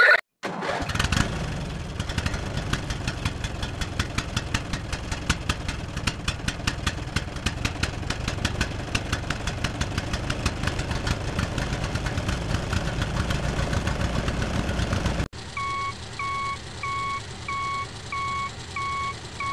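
Tractor engine running with a rapid, uneven chugging knock, cut off abruptly near the end. Then a steady electronic beeping begins, about two beeps a second.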